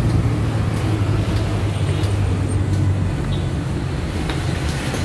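Steady low rumble of road traffic with a droning engine hum, and a few faint clicks of footsteps on concrete steps.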